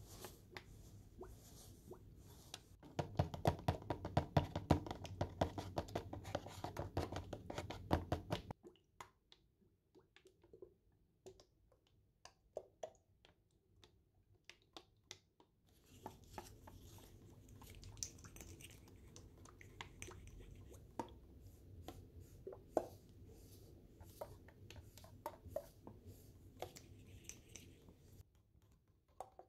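Hands handling paper cut-outs: a dense run of rapid taps and rustling for several seconds, then scattered clicks, then quieter steady rustling with occasional taps.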